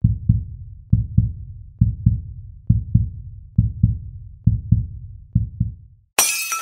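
Heartbeat sound effect: deep double thumps, lub-dub, about once every second, seven times. About six seconds in, a sudden bright crashing hit cuts in.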